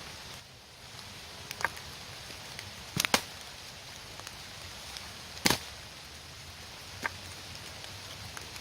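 Steady rain patter with a handful of sharp knocks: one about a second and a half in, a quick pair about three seconds in, the loudest just past halfway, and another near the end.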